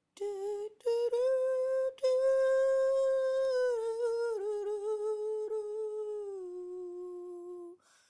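A person humming a slow tune in long held notes, with two short breaks in the first two seconds, then drifting gradually lower in pitch before stopping near the end.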